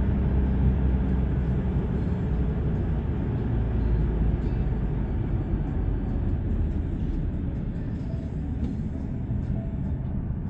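Steady low road and engine rumble of a moving vehicle, growing a little quieter toward the end.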